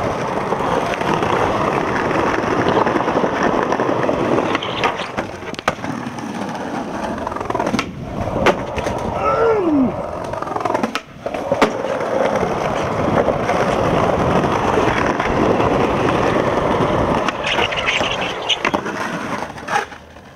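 Skateboard wheels rolling over brick pavers, a steady rough rumble, broken by several sharp knocks and clacks of the board partway through.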